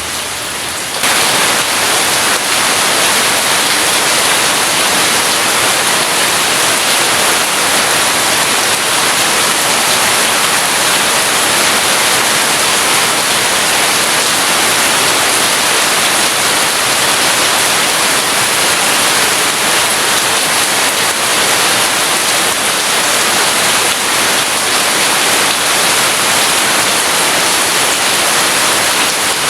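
Heavy rain falling as a steady, dense hiss, which suddenly gets louder about a second in and then stays even.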